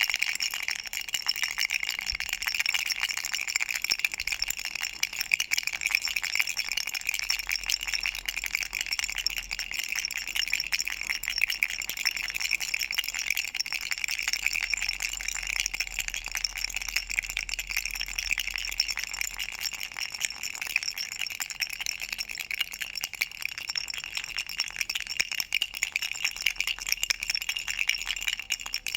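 A toy rattle shaken continuously, making a steady, fast, bright rattling with no pauses.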